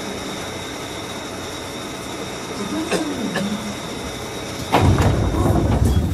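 Steady hum of a JR West 105 series electric train standing at the platform. About three-quarters of the way in, its sliding doors close with a sudden loud thump, followed by a second or so of loud low rumbling as it prepares to depart.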